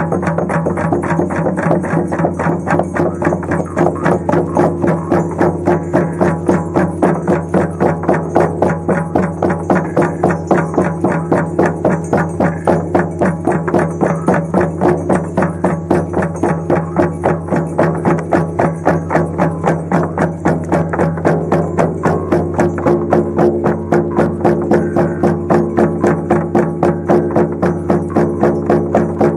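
Many shamanic frame drums beaten together in a steady, even rhythm of about three beats a second, over a steady low drone.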